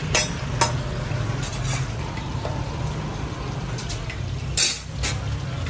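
Eggs frying in a wide, shallow pan of oil, sizzling steadily, with a few sharp clicks of a metal spatula against the pan. A brief, louder scrape comes about four and a half seconds in.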